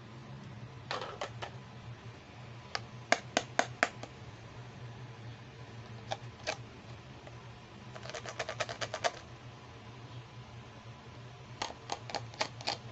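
Hard plastic toy handbag handled by fingers: sharp plastic clicks and taps in short clusters, including a quick run of about ten clicks just past the middle, over a low steady hum.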